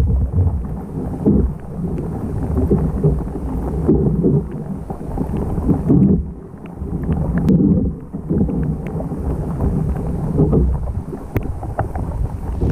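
A loaded canoe being towed on a line upstream through shallow river water: water rushing and sloshing along the hull in irregular surges, with wind buffeting the microphone.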